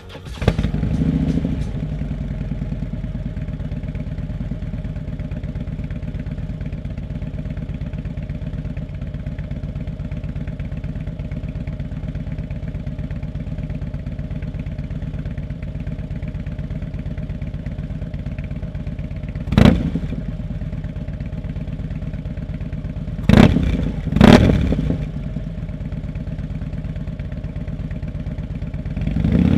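Harley-Davidson bagger's V-twin through a Bassani Road Rage B4 2-into-1 megaphone exhaust, idling with a steady beat. It is blipped sharply three times about two-thirds of the way through, and revs up near the end.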